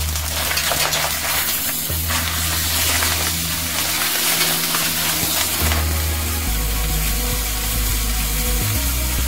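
Clams and mussels sizzling in a pot of hot extra-virgin olive oil with garlic and chopped onion, stirred with a wooden spoon. Background music with a low bass line plays underneath.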